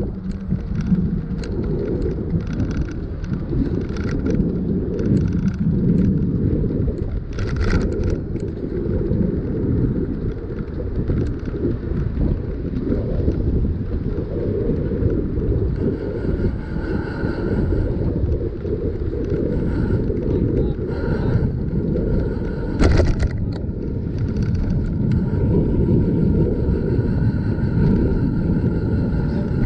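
Wind buffeting the microphone of a camera riding on a moving bicycle: a steady low rumble, with a couple of brief knocks, about 8 s in and again near 23 s.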